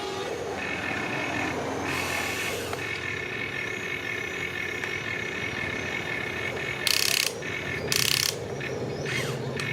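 Remote-control excavator's small electric motors and gearing whining steadily as it works, with several high tones held together. Two short, loud hisses break in about seven and eight seconds in.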